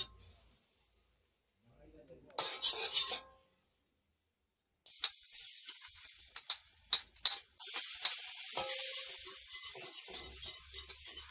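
A metal spatula scraping briefly around a wok, then frying in hot oil sizzling, with sharp clinks of the spatula against the wok; the sizzle gets louder about halfway through as more goes into the pan.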